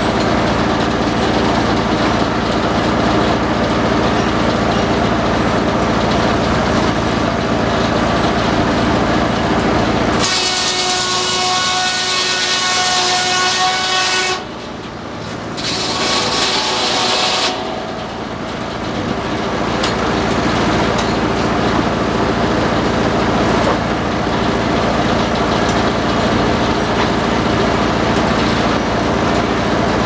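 Antique belt-driven circular sawmill running steadily, its flat belts and friction feed turning with a constant low hum. About ten seconds in, the saw blade cuts into a log with a loud high-pitched whine for around seven seconds, broken briefly about halfway through, then the mill settles back to its steady running.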